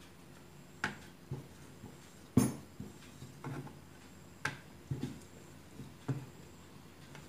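Wooden rolling pin and round wooden rolling board knocking and tapping as a paratha is rolled out and turned: a string of irregular knocks, the loudest about two and a half seconds in.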